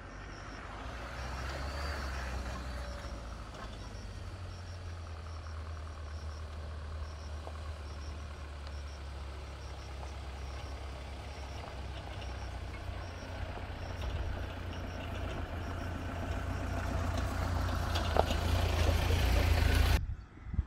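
A motor vehicle on the move: a steady low drone that grows louder over the last few seconds and then cuts off abruptly. A faint high chirp repeats evenly in the background.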